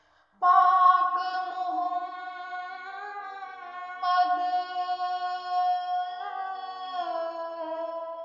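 A woman's voice singing long held notes, coming in suddenly right at the start and sliding to new pitches a few times before trailing off near the end.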